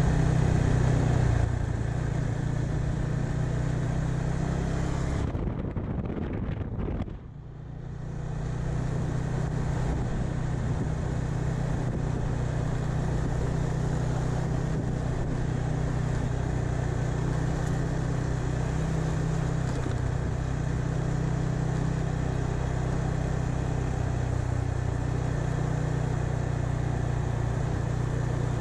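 KTM 390 Adventure's single-cylinder engine running steadily at low road speed. The sound eases off and drops away briefly about six seconds in, then picks back up and holds steady.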